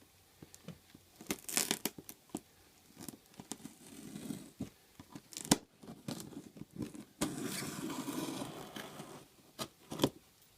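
A cardboard shipping box being opened by hand: tearing sounds in two longer stretches, about four and seven seconds in, among scattered knocks, clicks and crinkles of handling.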